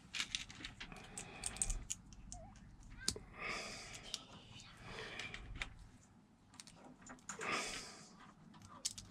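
Small plastic Lego pieces clicking and tapping as they are handled and pressed together, with a few soft rustles between the clicks.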